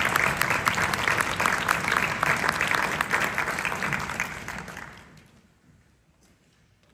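Audience applauding as the conductor takes the podium, a dense patter of clapping that dies away about five seconds in.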